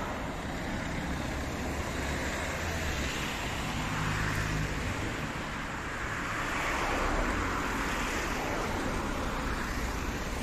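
Street traffic: car engines and tyre noise on the road, with a low engine hum about four seconds in and a car swelling past around seven seconds in.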